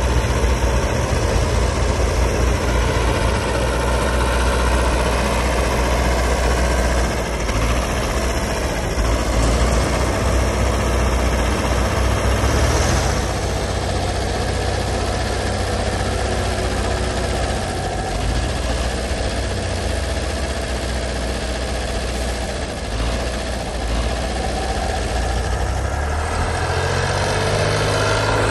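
Heavy diesel engines of a Belarus MTZ tractor and a Ural six-wheel truck running under load in deep snow, with one engine climbing in pitch near the end.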